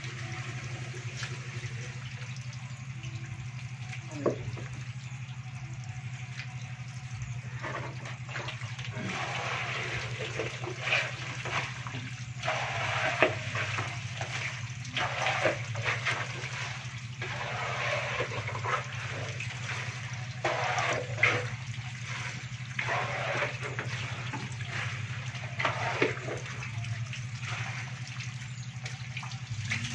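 Water splashing and sloshing in a shallow film on a concrete floor as a mass of live stinging catfish flop and wriggle in it and are scooped up, with irregular sharper splashes from about eight seconds in. A steady low hum runs underneath.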